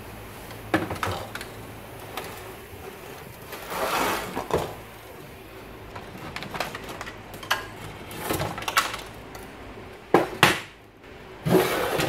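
Handling noise from the plastic blower housing of a stripped-down cooling unit being lifted, turned and set down on a wooden workbench: scattered knocks, clicks and clatter, with two sharp knocks a little after ten seconds in.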